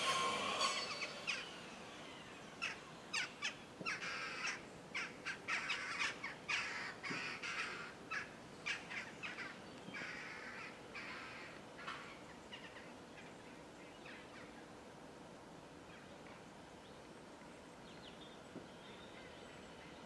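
Bird calls: a rapid, irregular series of short harsh notes from about a second in until about twelve seconds, then only faint background. A train's sound fades out in the first second.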